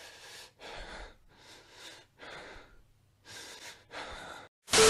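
A person breathing heavily in and out, about seven noisy breaths in quick succession with short gaps between them. A sudden loud noise cuts in right at the end.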